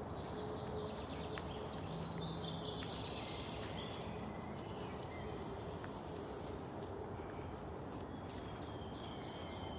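Songbirds singing in a forest: a descending series of chirps in the first few seconds, then a high trill around the middle, with scattered calls after, over a steady background hiss.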